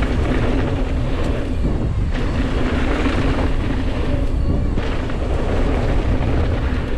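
Wind buffeting the helmet camera's microphone over the rumble of mountain bike tyres rolling down a jump trail at speed: a steady, loud rushing noise.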